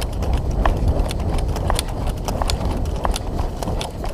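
Running footsteps over dry leaf litter and forest floor, an irregular patter of crunches and knocks, with loose gear rattling on the runner.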